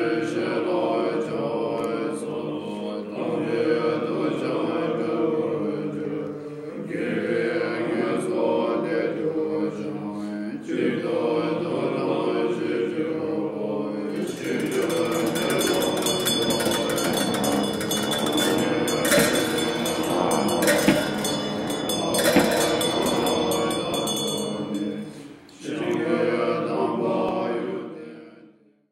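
Tibetan Buddhist monks chanting a mantra in low, sustained voices, in phrases of a few seconds each. From about halfway, metal ritual percussion clashes and rings along with the chant for roughly ten seconds; the chant fades out at the end.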